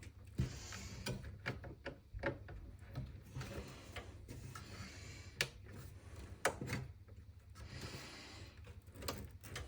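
Irregular plastic clicks and knocks of power cables being handled and plugged into connectors inside a desktop PC case, with a steady low hum underneath.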